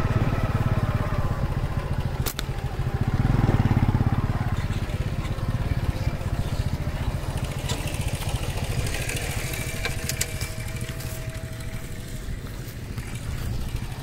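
Motorcycle engine running steadily, briefly louder about three to four seconds in.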